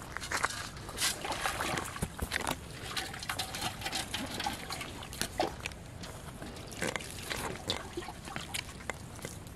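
Pond water splashing and trickling as a man scoops it with a metal dish into an aluminium pot at the water's edge, with irregular small knocks and splashes.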